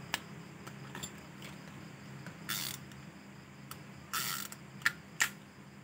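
Abu Garcia Cardinal third-generation S3000 spinning reel being worked by hand, with the crank turning its gears. There are faint mechanical clicks, two short rasps, and a couple of sharper clicks near the end.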